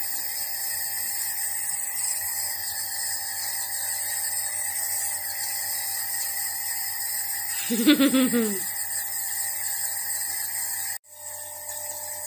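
Compressor nebulizer running with a steady buzzing drone, misting liquid medicine to be inhaled. About eight seconds in there is a brief voiced sound from the person, falling in pitch. Near the end the drone cuts out for an instant and comes back slightly quieter.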